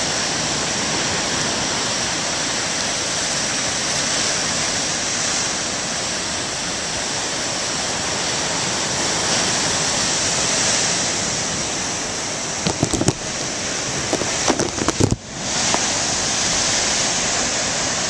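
Heavy storm surf breaking on a rocky shore: a steady, loud rush of churning water. About three-quarters of the way through comes a short cluster of sharp crackles and knocks.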